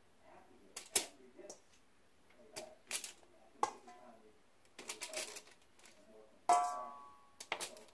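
Irregular clicks and clatters of chicken wings being laid into a metal baking pan, with one ringing metallic clang about two-thirds of the way through.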